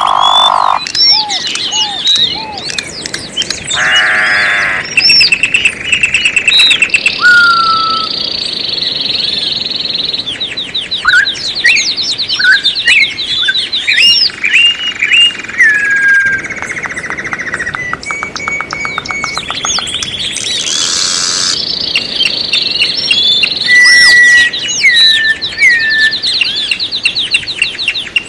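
Several songbirds singing and calling over one another: chirps, whistled notes and fast trills of rapidly repeated notes.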